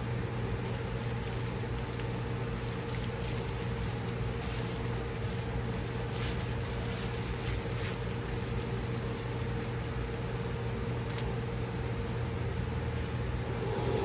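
Steady hum of a machine cutting acrylic sheet, with low tones held over an even whirr and faint ticks now and then.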